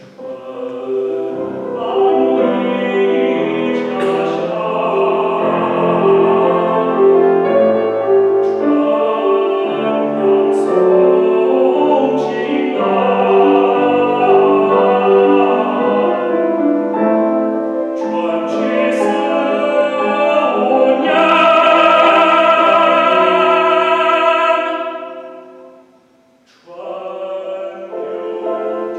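A male classical singer singing an art song with grand piano accompaniment. Near the end the voice holds one long note, the music breaks off for about a second, then voice and piano start again.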